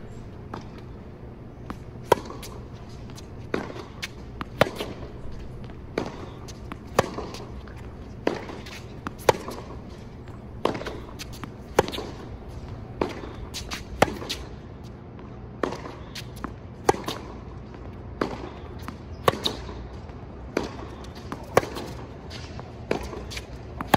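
Tennis rally on a hard court: sharp pops of racquets striking the ball and the ball bouncing, about one a second, with the nearer player's racquet strikes the loudest.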